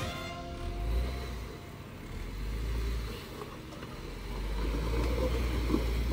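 Off-road Jeep engine running at low revs as it crawls along the rocky trail, a deep steady rumble under a rough noisy haze.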